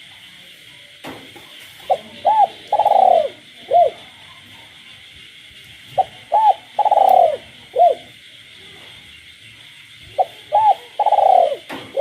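A captive spotted dove cooing: three phrases about four seconds apart, each a couple of short notes, a long rolling coo and a short final note. A steady chorus of frogs runs beneath.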